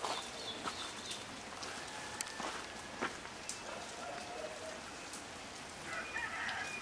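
Water dripping from a seeping rock wall into a still pool: a steady patter of drops with scattered sharper plinks.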